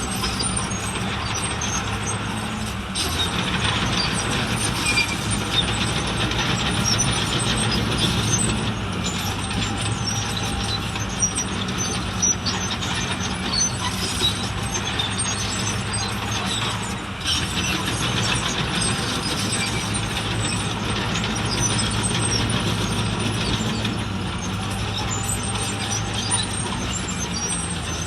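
Diesel engine of heavy earthmoving machinery running steadily, with many short high-pitched squeaks and metallic clicks throughout.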